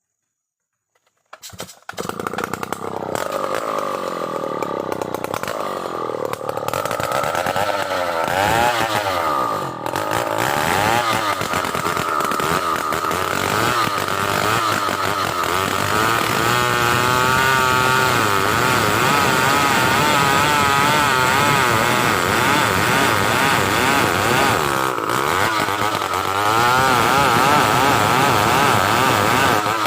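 Stihl 070 two-stroke chainsaw running hard while cutting through a large log. The sound starts suddenly about a second and a half in, and its pitch keeps wavering up and down as the engine works under load.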